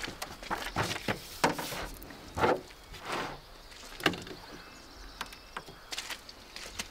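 Handling sounds: scattered rustles, light clicks and short scratching strokes as a pen writes in a paper notebook on a table, with a few louder rustles of clothing.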